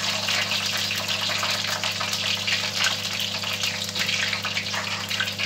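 Chopped garlic and a piece of hot pepper sizzling in hot oil in a wok: a steady hiss full of fine crackles.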